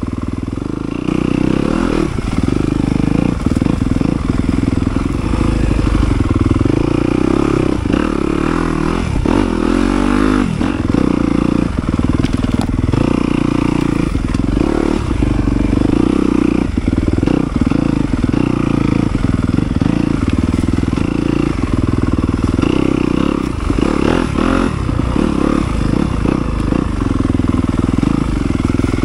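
Yamaha YZ250FX dirt bike's single-cylinder four-stroke engine being ridden hard along a woods trail, its note rising and falling continuously as the throttle is opened and chopped.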